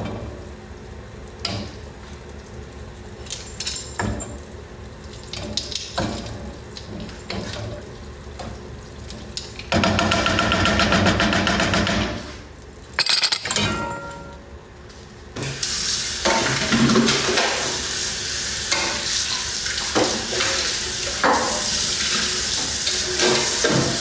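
Kitchen clatter: pots and utensils knocking, with a loud, fast rattling stretch about ten seconds in. Water then runs from the kitchen tap into the sink for the last eight seconds or so.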